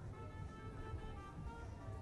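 Music: a melody of held notes changing every fraction of a second, over a steady low rumble.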